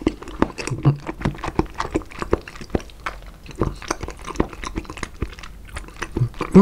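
Close-miked chewing of raw salmon: a quick, irregular run of small wet mouth clicks and smacks.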